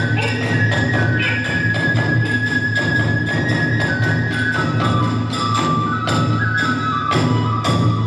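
Kagura festival music. Taiko drum and small hand cymbals beat about four to five times a second under a bamboo flute that holds long, high notes.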